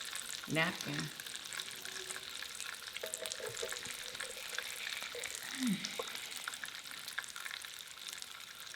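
Onions sizzling and crackling on a hot indoor grill, a steady frying hiss with fine pops.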